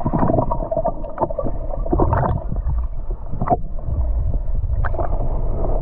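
River water sloshing and splashing around the legs of someone wading through a deep stretch, with irregular splashes over a constant low rumble.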